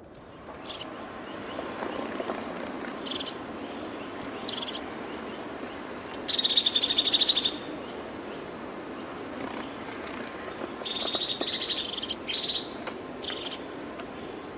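Wild birds calling over steady outdoor ambience: scattered short high chirps, with a loud, rapid pulsed trill about six seconds in lasting over a second, and another burst of fast trilling about eleven seconds in.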